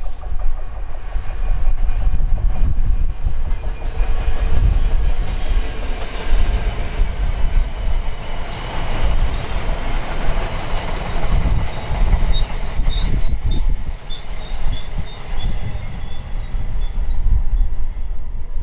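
Container freight train passing at speed: a long rake of flat wagons rumbling and clattering over the rail joints, loudest about halfway through. In the second half come a series of short, high-pitched wheel squeaks as the wagons draw away.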